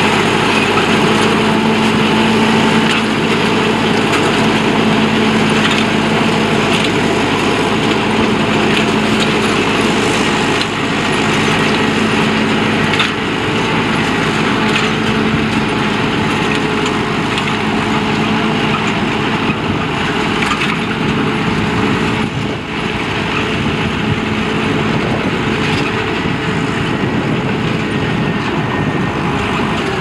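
Massey Ferguson 3070 tractor's diesel engine running steadily under load, pulling a three-furrow Kverneland plough. Its steady engine note grows fainter in the second half as the tractor moves off.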